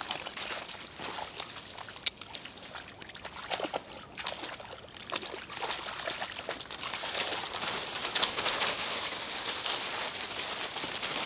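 Two dogs splashing and scuffling in a shallow pond and over dry fallen leaves: many short splashes and crackling leaf rustles, louder and denser in the second half.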